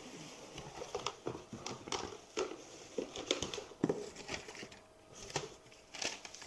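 Plastic packaging crinkling and paper sheets rustling as hands rummage in a cardboard box, with irregular light clicks and knocks.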